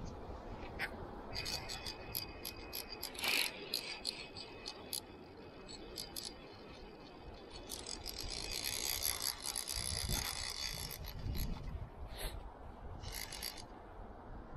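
Fly reel's click-and-pawl ratchet: scattered clicks at first, then a few seconds of rapid, continuous clicking in the second half, as line goes on or off the reel while a hooked trout is played.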